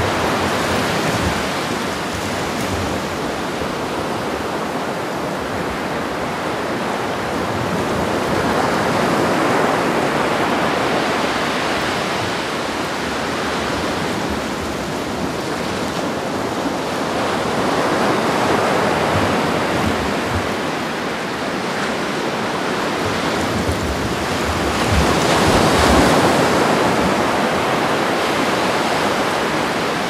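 Ocean surf: big waves breaking and washing in as a continuous rush of water noise that swells louder about every eight seconds, with the loudest swell near the end.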